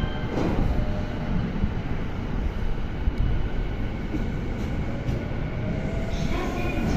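JR East E231-series commuter train rolling into the platform close by: a steady rumble of wheels on rail and running gear as the cars pass.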